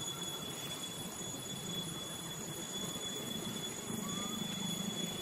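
Steady outdoor background: a continuous high-pitched whine held on one pitch, over a low hum that grows a little louder near the end.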